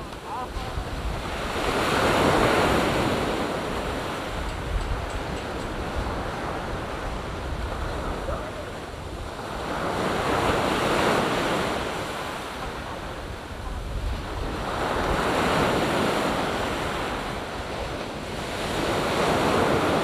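Sea waves breaking and washing up a sandy beach, swelling four times. Wind on the microphone adds a low rumble underneath.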